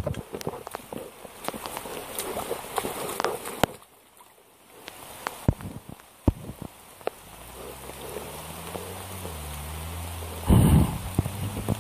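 Rain falling into a puddle, a steady patter broken by many sharp drip and splash clicks, heavier for the first few seconds. From about seven seconds in a low steady hum joins it, and a short loud rush of noise comes near the end.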